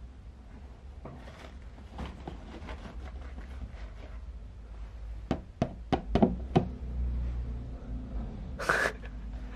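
A kitten pushing at a clear plastic cat flap from inside a cardboard box: the flap knocks against its frame in a quick run of sharp clacks about halfway through, then a short scrape near the end.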